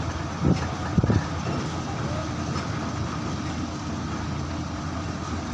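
Heavy truck's diesel engine running steadily with a low rumble, and a couple of short low thumps in the first second or so.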